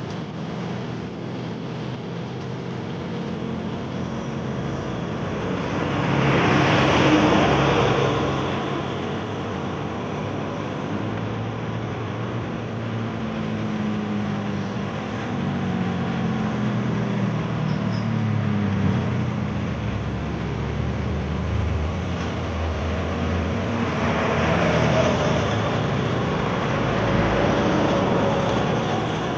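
Road traffic on a concrete toll road: trucks and buses driving past, engine and tyre noise swelling as each vehicle comes close, loudest about seven seconds in and again near the end, with a low engine drone in between.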